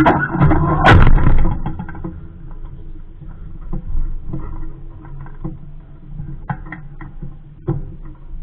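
Knocks, thumps and rattles from a small sailboat's hull and fittings as the crew shift about aboard. They are loudest in the first second and a half, then thin out to scattered light clicks and taps.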